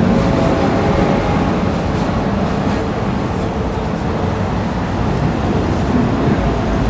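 Steady low rumble of motor traffic passing close by on a city street.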